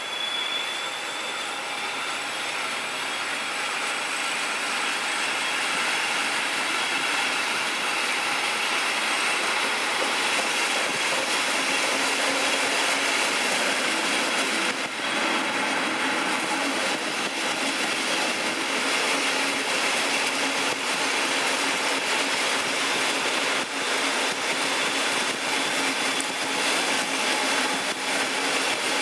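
DB Class 218 diesel-hydraulic locomotive working hard as it hauls its train up a steep gradient, heard close behind it from an open coach window. The engine growl and rail noise build over the first few seconds and then hold steady.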